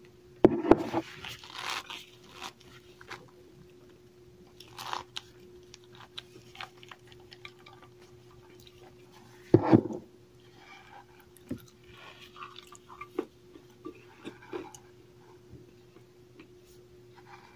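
Compressed cornstarch chunks bitten and chewed, giving soft powdery crunches: a loud crunching bite about half a second in and another about ten seconds in, with quieter crackly chewing between and after.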